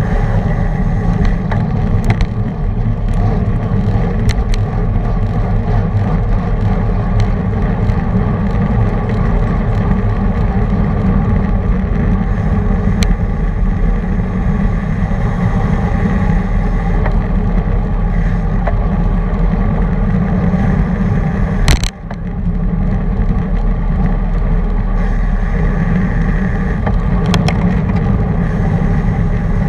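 Wind buffeting an action camera's microphone on a road bicycle at race speed, with steady tyre and drivetrain noise and a few light clicks. One sharp knock about three quarters of the way through.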